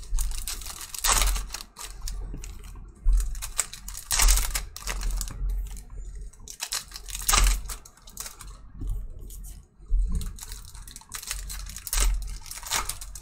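Foil trading-card packs crinkling and tearing as they are handled and ripped open by hand, in irregular crackles and rustles.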